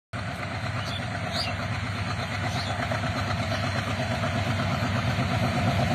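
Diesel locomotive of an approaching freight train: a steady low engine rumble that grows slowly louder.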